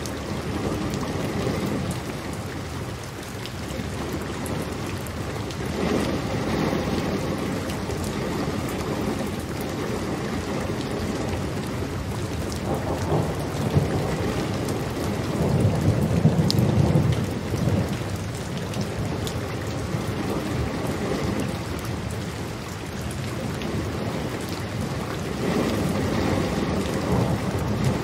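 Steady heavy rainfall with low rumbles of thunder that swell and fade, the loudest about halfway through.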